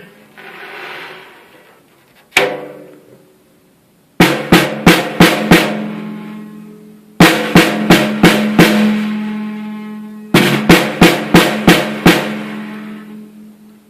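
Gretsch snare drum struck once, then in three quick runs of about six hits each. Every run is followed by a long ringing decay over a steady held tone: the rattle that the owner cannot explain.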